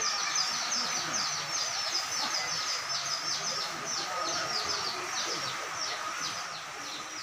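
Small birds chirping busily: a continuous stream of short, high, downward-sweeping chirps, several a second, over faint distant voices.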